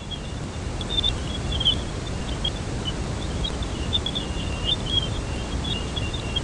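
Space-mission audio recording: a steady low rumbling noise with scattered high chirps and crackles above it.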